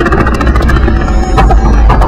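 Vocal mimicry of a kung fu film's soundtrack and fight effects: rapid percussive clicks and beats over a steady low rumble.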